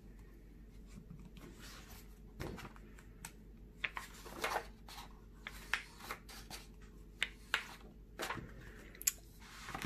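Pages of a hardcover picture book being turned by hand: a string of short paper rustles and swishes, one after another.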